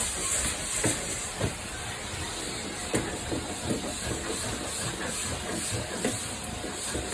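Vacuum cleaner running with a steady hiss while the car's boot is hoovered, with a few short knocks.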